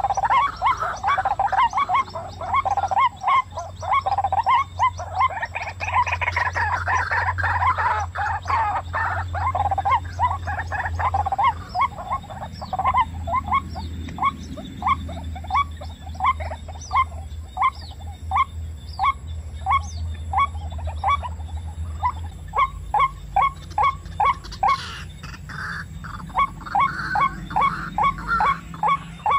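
White-breasted waterhens calling: a long series of short, rising notes, crowded and overlapping at first, then evenly spaced at about two a second and quickening near the end.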